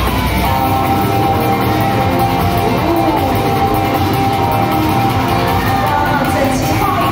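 Loud recorded dance music playing, with guitar and drums.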